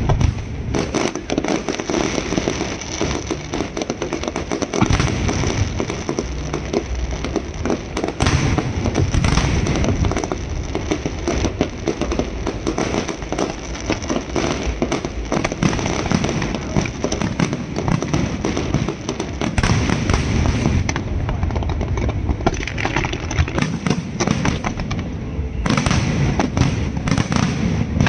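Fireworks and firecrackers going off in a dense, continuous barrage of rapid cracks and bangs.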